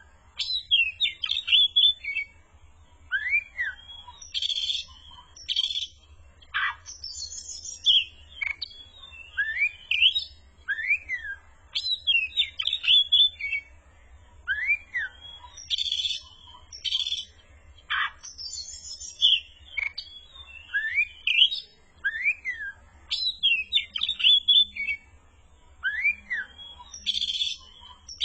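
Oriental magpie-robin (kacer) in full song: rising and arching whistled notes interleaved with short buzzy, scratchy bursts, the phrases coming back every two seconds or so without a break.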